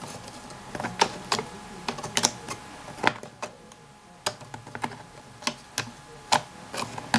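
Laser-cut plywood puzzle box being handled: wooden pieces and a slider clicking and tapping as they are pushed in and pulled out, in irregular sharp clicks about ten times, with a short lull in the middle.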